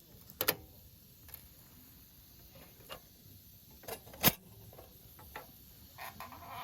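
Firewood in a campfire popping and crackling: scattered sharp pops at uneven intervals, the loudest about two-thirds of the way through.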